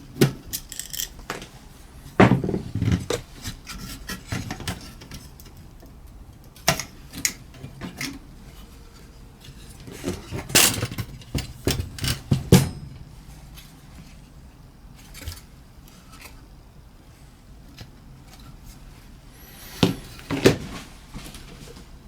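Tools and small metal and plastic parts of a car head unit being handled on a workbench: scattered clicks, knocks and short scrapes, coming in clusters a couple of seconds in, around the middle and near the end.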